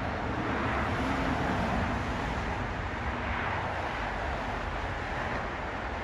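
Steady outdoor background rumble: an even, unbroken noise with no distinct events.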